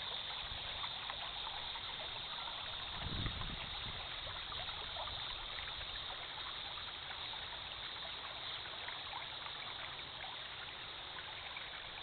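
Gentle river stream running and trickling steadily over rocks, with many small splashes and ticks. A brief low rumble comes about three seconds in.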